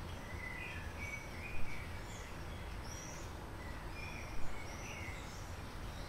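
Small songbirds chirping with many short, high calls, the louder ones about one and a half and four and a half seconds in, over a steady low outdoor rumble.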